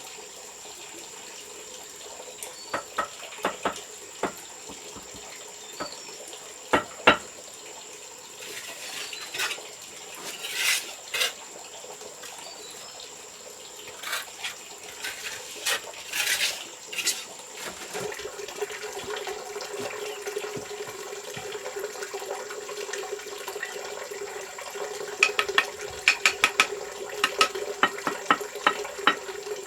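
Water running or pouring, with scattered clicks and short scrapes; a quick run of taps near the end.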